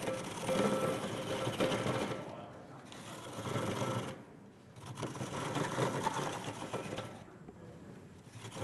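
Bench-mounted coconut scraper grating the white kernel out of a half coconut shell: a rapid rasping in bouts, broken by three short pauses.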